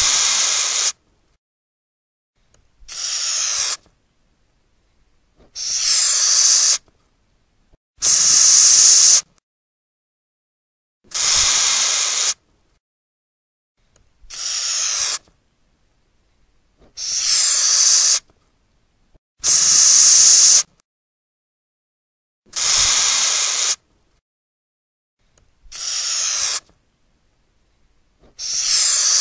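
Madagascar hissing cockroach hissing, air forced out through the breathing holes along its abdomen. About eleven separate hisses in a row, each about a second long, with short silent gaps between them.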